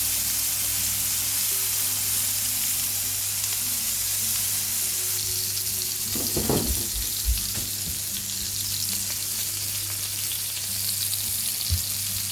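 Thick bone-in ribeye (tomahawk) steak sizzling steadily as it sears in oil on a hot cast-iron griddle. A few light knocks about halfway through and once near the end.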